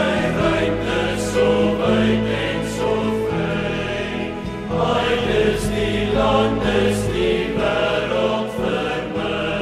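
A choir singing an Afrikaans song, the voices holding long notes over a deep bass line.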